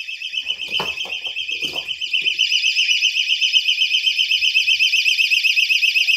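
Personal keychain alarm sounding a high, fast-warbling tone, muffled at first while buried in loose dense-fill cellulose insulation, then louder about two seconds in as it is dug out into the open. Hands rustle and knock in the cellulose fill during the first two seconds.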